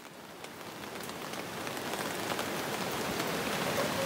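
Rain falling, a steady hiss with many individual drops ticking sharply, growing louder.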